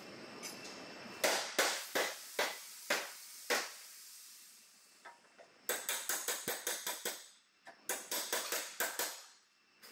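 A hammer striking the crumpled front-end sheet metal of a Toyota Prado: about six separate blows, then two runs of quick repeated blows, each hit ringing briefly.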